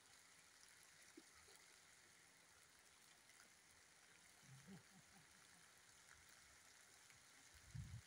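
Near silence: a faint steady outdoor hiss, with a soft low thump near the end.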